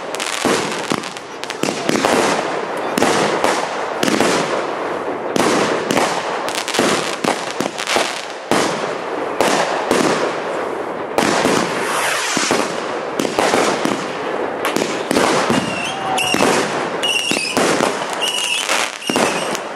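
Fireworks display: aerial fireworks bursting in rapid, continuous succession, a dense run of bangs and crackle with no pause.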